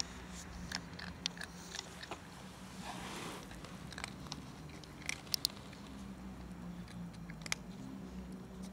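A cat crunching dry kibble, with irregular sharp crunches from its bites, the loudest a quick pair a little past halfway.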